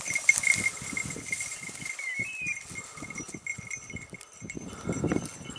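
Bell on an English setter's collar ringing in quick irregular pulses as the dog ranges through the scrub, with rustling brush and footsteps underneath.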